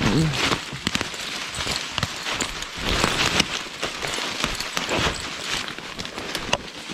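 Footsteps crunching and sliding through fallen leaves on a steep slope, an uneven patter of rustles and small cracks that swells louder about three seconds in.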